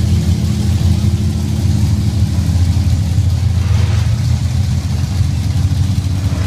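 Monster truck engine running steadily at idle, a loud, deep, even engine note.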